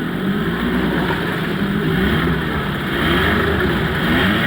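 1997 Suzuki 5 hp two-cylinder two-stroke outboard motor running in gear, revved up and down, its pitch rising and falling twice in the second half.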